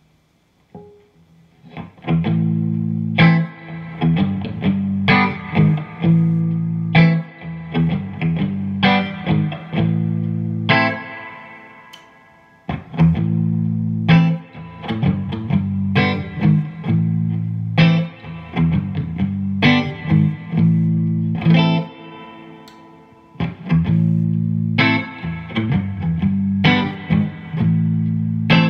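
Electric guitar, a custom-built replica of an Epiphone Crestwood Custom, played through an amp: strummed chords and riffs in phrases starting about two seconds in. Twice the playing rings out and dies away before picking up again.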